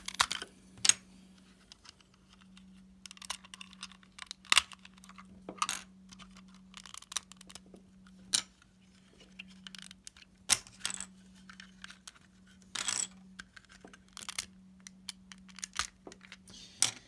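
Lego plastic parts clicking and clattering as a Lego puzzle box is opened up by hand: irregular sharp clicks and short rattles, with a faint steady low hum underneath.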